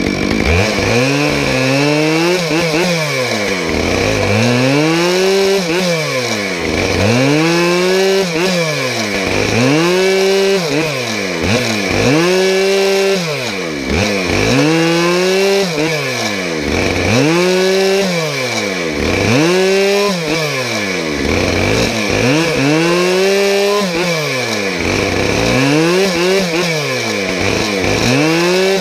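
Two-stroke chainsaw running hard while cutting a log into firewood rounds. Its engine pitch rises and falls in a regular cycle about every two seconds.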